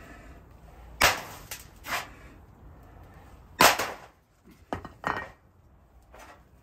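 Heavy metal ingot mould banged down and tipped to knock out a freshly cast copper ingot: a run of sharp metal knocks and clanks, about seven in all, the loudest a little past halfway.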